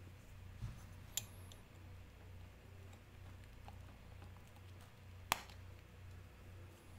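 Faint clicks of a stainless steel watch case back being twisted off by hand: a small click about a second in and a sharper, louder click about five seconds in as the back works loose, over a low steady hum.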